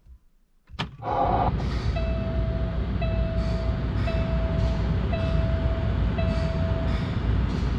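A click, then the Cummins ISX diesel of a 2008 Kenworth W900L starts about a second in and runs at a steady idle. Over it a dash warning chime beeps about once a second, five times, and stops shortly before the end.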